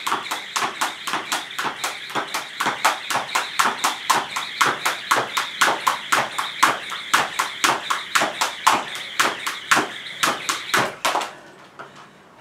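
Jump rope slapping the floor in a rapid, even rhythm during double unders, the rope passing twice under the feet on each jump, about four to five slaps a second. It stops about eleven seconds in.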